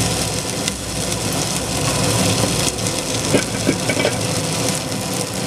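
Steady fan-like hum with a light hiss of chopped onion, garlic and ginger paste frying in oil in an aluminium pressure cooker on an induction cooktop.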